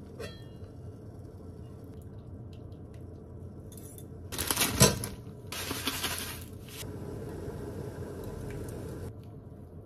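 Miso soup being made in a stainless saucepan: a metal ladle and utensils clink against the pot as ingredients go into the broth, with one loud clatter a little before the middle.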